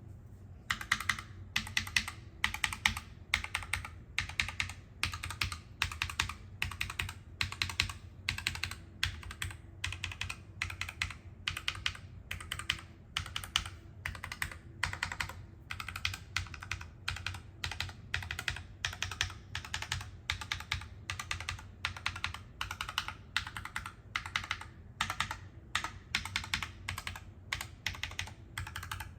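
Typing on a NuPhy Air75 low-profile mechanical keyboard with tactile switches: a steady run of key clacks, a few strokes a second.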